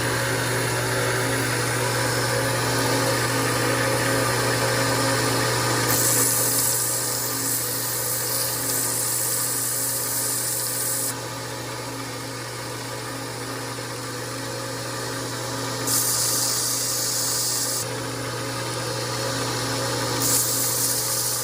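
Mini belt grinder running with a steady hum. A tungsten electrode is pressed against the belt to sharpen it, giving three spells of high grinding hiss: a long one about six seconds in, a shorter one around sixteen seconds, and a brief one near the end.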